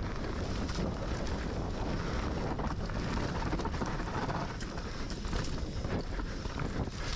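Wind buffeting the microphone of a camera on a moving mountain bike, a steady low rumble, over the bike's tyres rolling on a dirt woodland trail.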